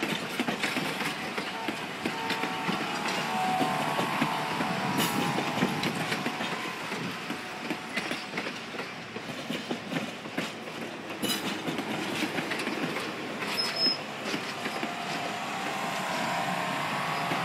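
Napa Valley Wine Train passenger cars rolling past while coming into the station, wheels rumbling and clattering over the rails. Faint wheel squeal rises near the start and again near the end, with a couple of sharp clicks along the way.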